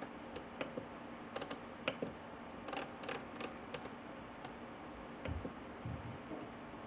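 Irregular light clicks and taps, loudest about two seconds in, with a couple of dull thumps about five seconds in, over a faint steady hum.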